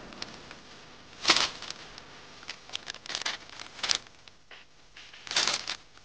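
Newspaper sheets rustling and crinkling in short bursts as the pages are handled, the loudest a little over a second in.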